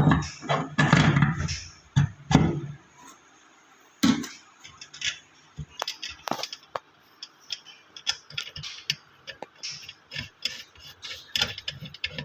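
Hand tools working on a washing machine gearbox assembly: many short, irregular metallic clicks and scrapes as the gearbox mounting screws and bolts are tightened. A louder, lower-pitched clatter fills the first two seconds or so.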